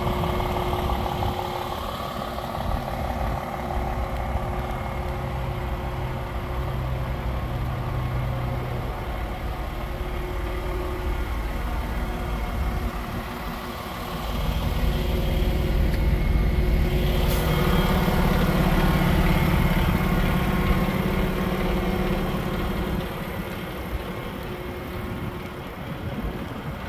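DAF XF 480 tractor unit's PACCAR MX-13 six-cylinder diesel idling steadily. It grows louder for several seconds about halfway through.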